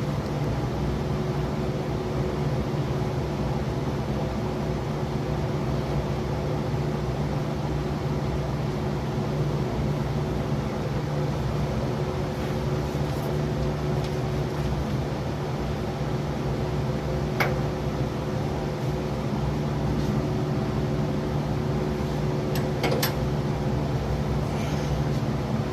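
Steady mechanical hum, like a fan or similar motor, with a few light clicks: one a little past halfway and a quick cluster near the end.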